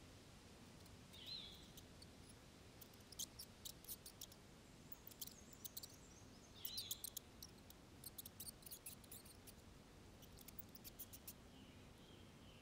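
Faint outdoor quiet broken by a short high chirp about a second in and again near seven seconds, with a scatter of quick, sharp high-pitched ticks in between, coming in irregular clusters.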